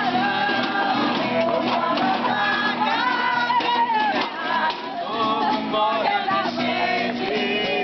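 A group of people singing a song together, with rhythmic percussive beats underneath.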